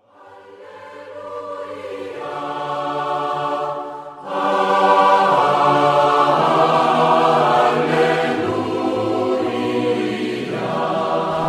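Choral music, long held chords of voices, fading in slowly from silence. It dips briefly and comes back fuller about four seconds in.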